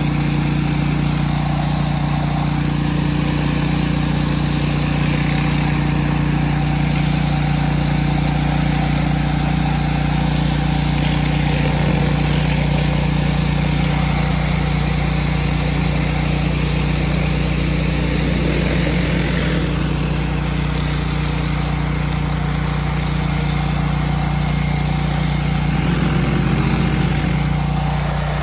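Gas-engine pressure washer running steadily under load, a constant loud engine hum under a steady hiss of spray as plain water is blasted onto pavement.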